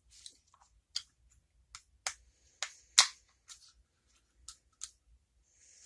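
Small lock tools and a padlock shim being handled: about a dozen irregular sharp clicks and taps, the loudest about three seconds in, with a brief rustle near the end.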